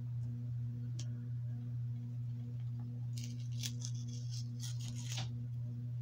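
A steady low electrical hum with a faint pulsing buzz runs throughout. A single click comes about a second in. From about three seconds in, there are two seconds of crackly plastic rustling as a DVD case and its packaging are handled.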